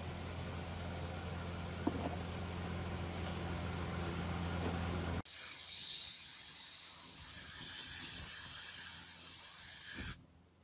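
Spraying hiss from paint being sprayed onto the restored diesel engine's castings. First a steady hiss over a low hum, then, after a sudden change about five seconds in, a brighter and louder spray hiss that swells and cuts off sharply with a click near the end.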